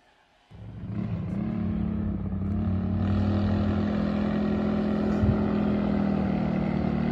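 Small minibike engine running at steady revs. It comes in suddenly about half a second in and grows louder over the next couple of seconds, then holds.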